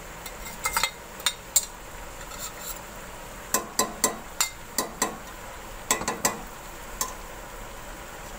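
A metal ladle clinking and scraping against the inside of a metal cooking pot while chicken is stirred in frying ghee, over a faint steady sizzle. A few knocks come in the first two seconds, then a quick run of clinks in the middle.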